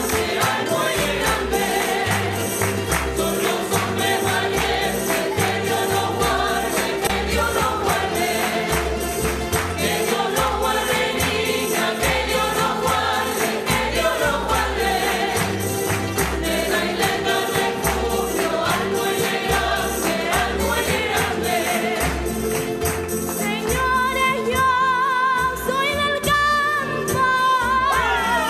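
Background music: several voices singing together over a steady beat with light percussion such as tambourine. Near the end the backing thins and a single voice holds wavering notes.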